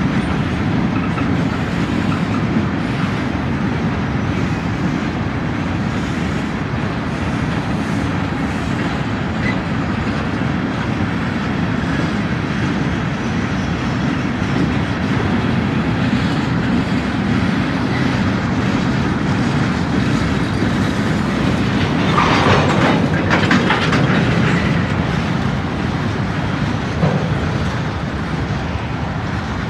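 Freight cars rolling by slowly with a steady rumble and wheels clacking over rail joints. About two-thirds of the way through comes a brief metallic screech, and near the end a single sharp clank.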